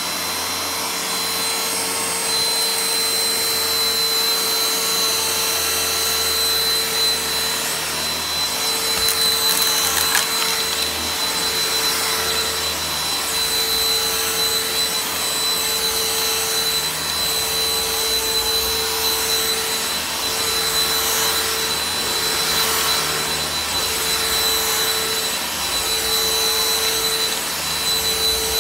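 G-Tech cordless handheld vacuum running with its powered turbine brush, worked back and forth over carpet to pick up dust and fluff. There is a steady high whine over the motor, and the lower hum swells and dips with each stroke.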